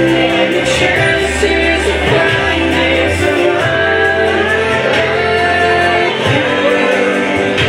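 Music with singing: a song with sustained bass notes and a vocal line, playing without a break.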